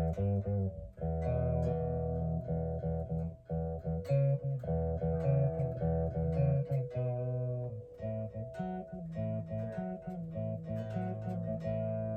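Electric guitar on a clean amp-simulator tone, strummed chords struck every second or two and left to ring.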